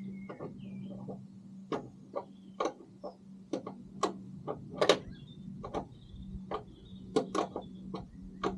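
Irregular clicks and knocks as a replacement car door is handled and offered up to its hinges, the loudest about five seconds in, over a steady low hum.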